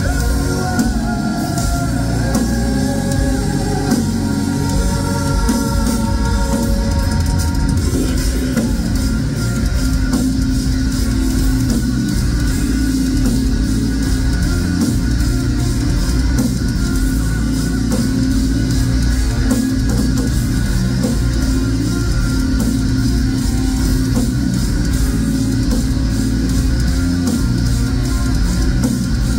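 Live progressive metal band playing loudly: electric guitars, drums and keyboards. Held melodic lines over the first several seconds give way to a denser, heavier full-band section about eight seconds in.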